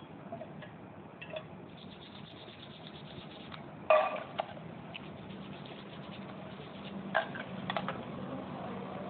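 Oil-pump parts and fingers clinking and knocking against an enamel pot while being washed by hand in thinner, with one sharp knock about four seconds in and a few more clicks near the end.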